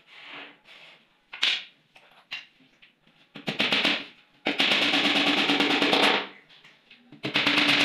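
Hammer driving nails into the edge of a laminated wardrobe board panel: a single sharp knock, then runs of very fast, even blows, the longest about a second and a half, with the panel ringing under them.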